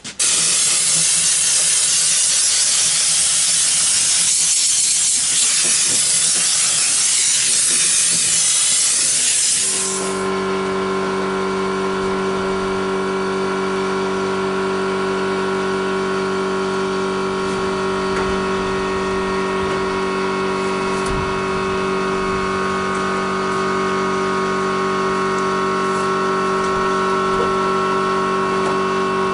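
Pressure washer spraying a loud hissing jet for about ten seconds; the spray cuts off suddenly and the washer's motor and pump keep running with a steady hum.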